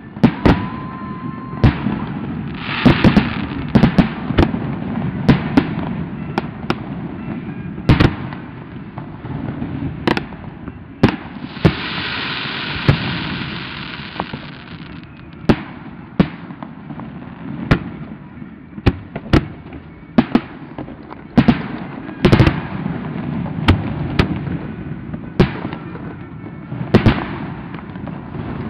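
Aerial fireworks shells launching and bursting in a string of sharp bangs, about one a second. A few seconds of steady hiss come near the middle.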